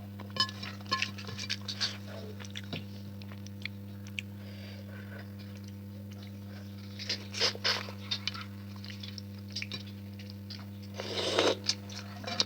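Close-up eating sounds: chewing, with small wet clicks and crunches of food, in clusters and a quieter stretch in the middle, over a steady low hum.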